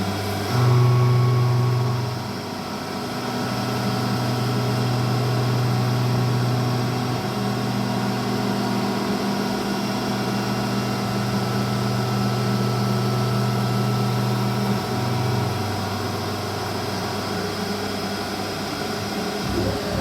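Kunzmann WF7 CNC milling machine running, a steady mechanical hum whose low tones step to a different pitch several times as it works.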